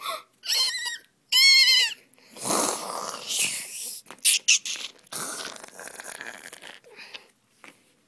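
A person's voice making animal noises for a play hunt: three short, high, quavering squeals in the first two seconds, then breathy, rough growling and snarling that fades out near the end.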